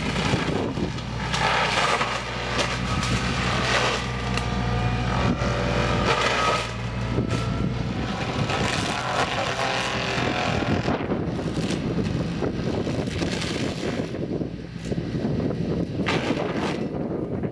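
Mini excavator's diesel engine running under load, driving a Lipa TLE-FS 90 forestry mulcher head whose rotor is shredding brush and limbs, with irregular bursts of cutting noise over the steady engine drone.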